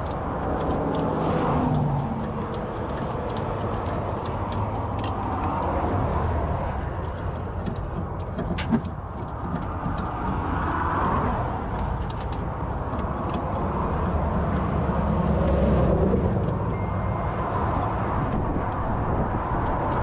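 Steady roadside highway traffic, swelling and fading as vehicles pass. A single sharp knock comes about nine seconds in.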